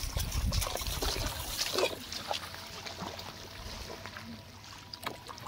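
Shallow water sloshing and trickling as bare feet wade through a flooded rice paddy, with a few small splashes.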